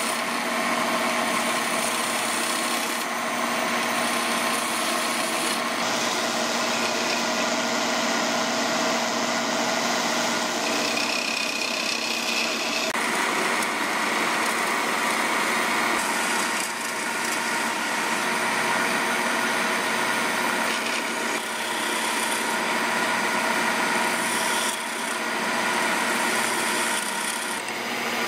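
Wood lathe running while a hand-held gouge cuts into a spinning wooden blank: a continuous scraping hiss over a steady motor hum, its character changing a few times.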